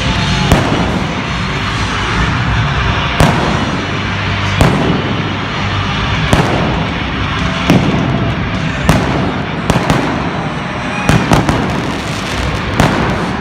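Pyrotechnic bangs: about ten sharp reports at uneven intervals, three in quick succession a little past the two-thirds mark, over a steady loud background din.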